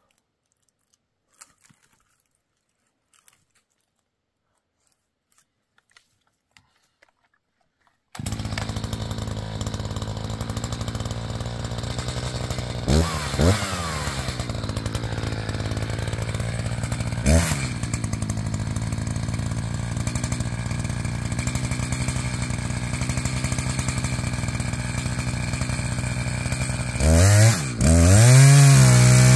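A few faint clicks, then a chainsaw suddenly running at a steady idle, blipped up briefly three times, and revved up to a louder, higher-pitched full-throttle run near the end.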